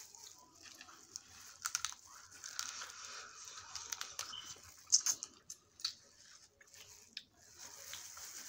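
Snow crab being eaten: wet chewing, with sharp snaps and plastic crinkling as gloved hands crack and pull apart the shells. The sharpest snap comes about five seconds in.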